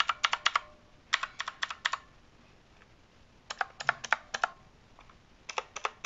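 Blue clicky switches of a HIWING HI200 60% mechanical keyboard pressed fully, in four short runs of sharp clicks with pauses between: very clicky.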